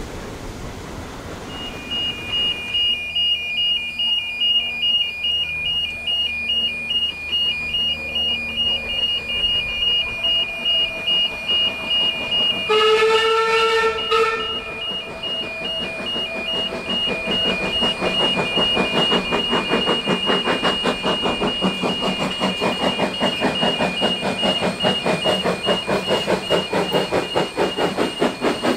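Queensland Railways PB15-class 4-6-0 steam locomotive working a train: its exhaust chuffs beat about once a second, then quicken and grow louder as it draws closer. One whistle blast about a second and a half long sounds roughly halfway through.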